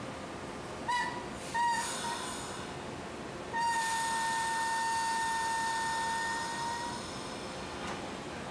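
Train horn sounding two short blasts about a second in, then one long blast of about three seconds, all on a single high note, over a steady hiss.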